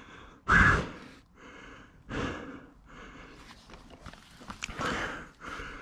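A man breathing heavily and out of breath, a series of loud breaths with the strongest about half a second in. He is worn out from exertion.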